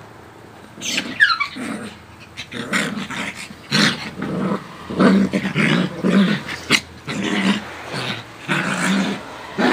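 Coton de Tulear and Yorkie-Lowchen mix play-fighting, with a run of repeated growls starting about a second in. One short high cry that slides down in pitch comes near the start of the growling.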